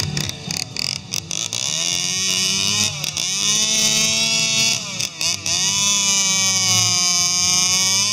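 Two-stroke chainsaw revving high while its bar cuts into a wooden log, the revs dipping and climbing back a few times as the throttle is eased and reopened.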